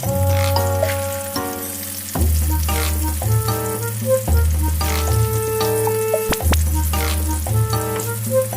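Potato-starch-coated firm tofu frying in hot oil, sizzling steadily, under background music with held notes and a bass line.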